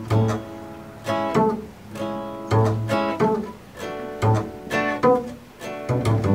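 Acoustic guitar playing picked and strummed chords that ring out and decay, over plucked notes on an upright double bass, with no vocal.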